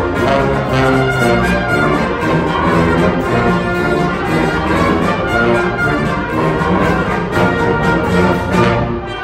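Concert band of woodwinds and brass, tuba included, playing a piece together as a full ensemble; the brighter upper sound drops away just before the end.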